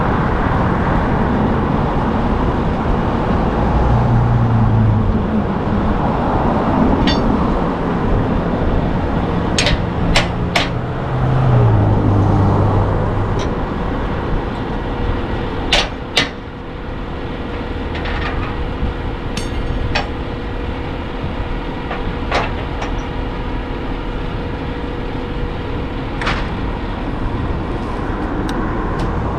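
Peterbilt car-carrier truck running with a steady mechanical hum. Several short, sharp metal clanks and clicks come from the trailer's loading decks as the worker handles them.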